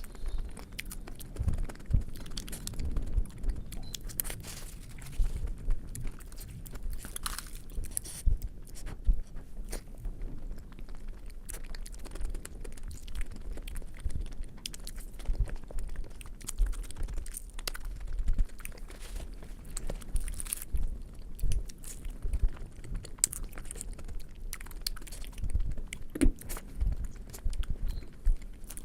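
Close-miked chewing and mouth sounds of someone eating puri with potato curry, with irregular small clicks and soft thumps.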